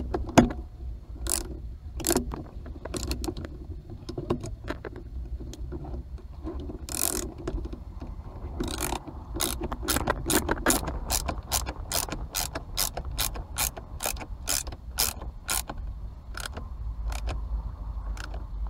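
Ratcheting driver clicking as a self-tapping screw is worked into a steering-wheel frame: irregular clicks at first, then an even run of about three clicks a second for several seconds, which stops a couple of seconds before the end.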